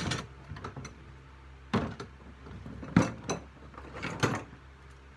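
Old steel parts such as tie rods and caster wheels tossed onto a scrap metal pile, giving about five separate clanks, the loudest about three seconds in.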